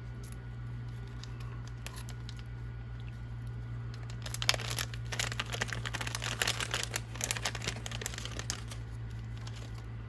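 Plastic parts bags crinkling as they are handled and opened. A few faint clicks come first, then a few seconds of dense crinkling about halfway through, over a steady low hum.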